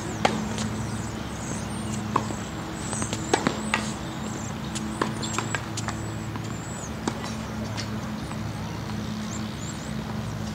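Outdoor court ambience: a steady low hum with scattered sharp clicks, a few loudest about three and a half seconds in, and faint high chirps throughout.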